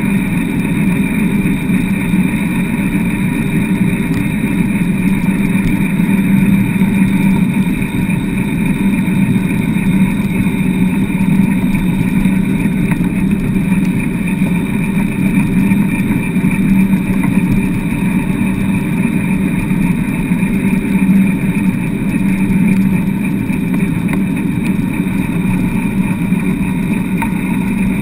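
Dry-land dog rig rolling fast over wet beach sand behind a four-dog team: a steady rumble and hum from its wheels and frame, unchanging throughout.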